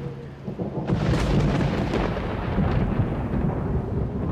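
Thunder rolling: a low rumble that sets in suddenly about a second in, crackling at first, and carries on.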